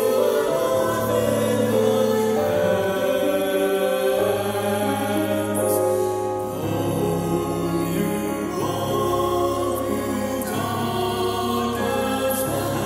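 A slow Christian hymn sung by a choir in long held chords over a low sustained bass, the chords changing every couple of seconds.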